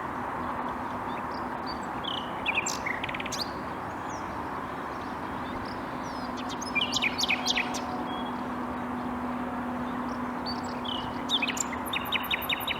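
Common nightingale singing three separate phrases of sharp whistles and fast repeated notes, with pauses between them. A steady background hiss and a low hum lie underneath, and the hum is stronger in the middle.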